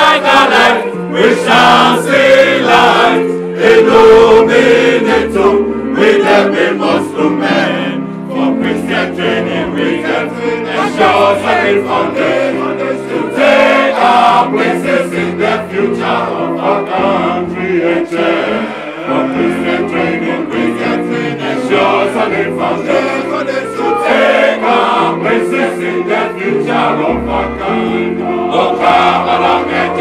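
A large group of men singing together in chorus, continuously and loudly, with held low notes moving in steps beneath the voices.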